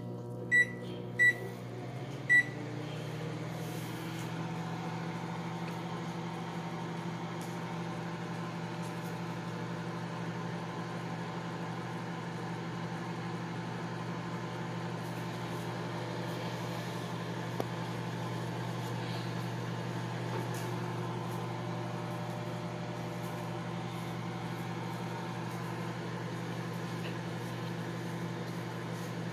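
Microwave oven keypad beeping three times as it is set, then the oven running with a steady hum as it heats a mug cake.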